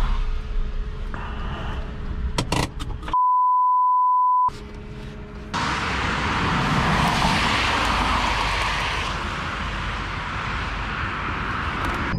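Cabin noise of a 1991 VW Caddy's 1.6 turbodiesel engine and the road, with a few sharp clicks, then a censor bleep: a steady 1 kHz tone of about a second and a half over total silence. After a short return of cabin noise, a cut to a loud steady rushing noise that lasts to the end.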